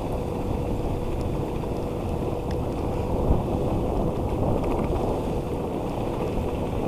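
Dog scooter's tyres rolling steadily over a wet trail, with wind buffeting the microphone; a faint steady whine sits underneath.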